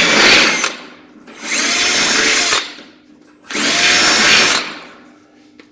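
Electric drill with a 5/16 inch bit drilling through the side of a grill, three short bursts about a second each, one for each of the three pilot holes being opened up, each trailing off as the drill winds down.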